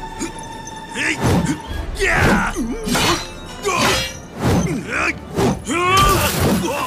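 Film fight soundtrack: a man's grunts and strained cries, about one a second, mixed with hits and blows, over background music.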